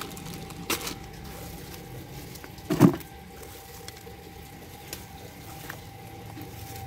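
A cardboard box and hand tools being handled on a concrete floor: a light click, then one dull thud about three seconds in, over a faint steady hum.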